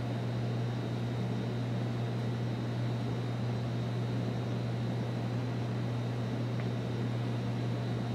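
A steady low hum with an even hiss, unchanging throughout: the room's background drone.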